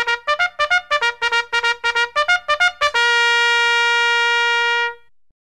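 Trumpet fanfare music: a quick run of short, repeated staccato notes at about five a second, then one long held note that stops about five seconds in.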